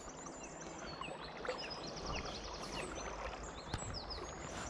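Steady rush of river water with small birds singing and chirping over it, including quick runs of high, evenly spaced notes. A single short click about three and a half seconds in.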